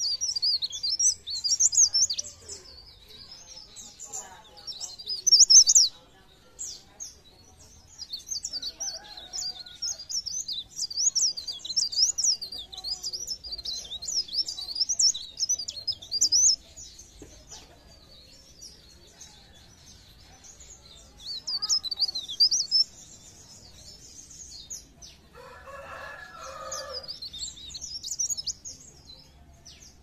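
Leaf warbler (cikrak daun, called pare-pare) singing: rapid, very high-pitched twittering chirps in bouts of a few seconds with short pauses between. Near the end a lower call about two seconds long sounds in the background.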